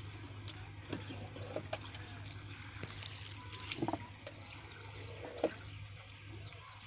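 Faint water trickling and lapping around a wooden boat, with a few small knocks and clicks, the sharpest about five and a half seconds in. A low steady hum runs underneath.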